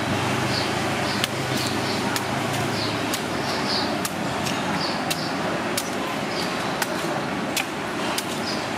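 Steady street traffic noise, with irregular sharp clicks and short scrapes of a knife cutting and shaving the husk of a young coconut.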